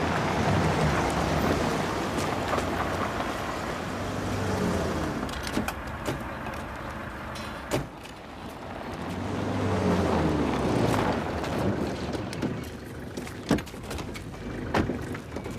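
Motor vehicles driving up, the engine note swelling and falling away twice. A few sharp knocks follow in the last few seconds.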